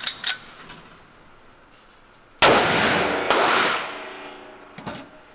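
Two shots from a Desert Eagle pistol, about a second apart, each ringing out in the echo of an indoor shooting range. A couple of sharp clicks come just before the first shot.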